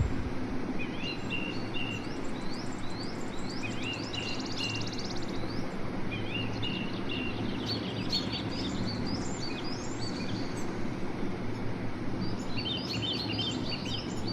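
Bird chirping: a string of short, rising, whistled notes with pauses, breaking into a quick dense flurry near the end, over a steady low hum.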